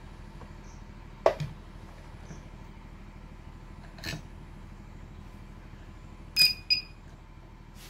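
Sharp clicks and a soft knock as the inverter's circuit board and connectors are handled, over a steady low mains hum. Near the end a switch click comes with two short high-pitched beeps from the Microtek inverter's buzzer.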